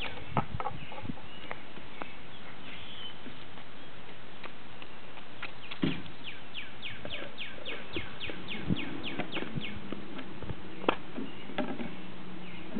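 A bird outdoors repeating a rapid run of short high chirps, about four a second, for a few seconds midway and again briefly near the end. A few sharp clacks, the loudest sounds, come from small plastic balls being handled and dropped into a plastic bucket.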